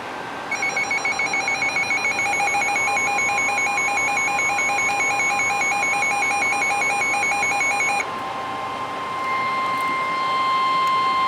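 Weather alert radios sounding their electronic alert tones. A warbling beep with a buzzy edge starts about half a second in and stops at about eight seconds. A steady single tone comes in a few seconds in and carries on, joined by higher steady tones near the end.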